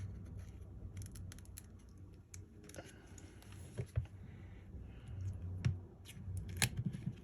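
Small hand tools clicking and scraping against an iPhone 15 during a screen repair: scattered light ticks and short scratches, with a sharper click about four seconds in and another near the end, over a low steady hum.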